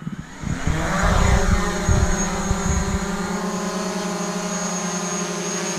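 DJI Mavic Pro drone's propeller motors spinning up, rising in pitch over about the first second, then running at a steady whine. This is a test run after repairing the drone's arm: the motors now start and run.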